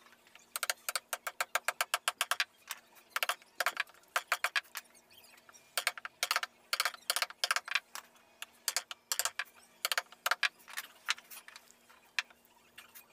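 Small metal-headed hammer tapping the wooden handle of a round gouge in quick runs of light strikes with short pauses between them, the gouge cutting round hollows into the carved wooden panel. The tapping stops near the end.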